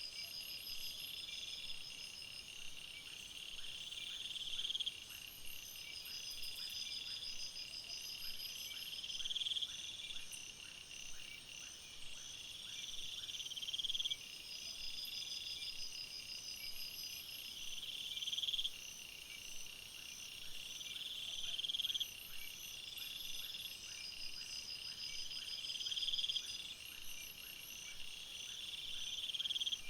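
Jungle ambience of a dense insect and frog chorus. Steady high trills run under a louder buzzing call that swells and then cuts off sharply every four to five seconds, with many short chirps beneath.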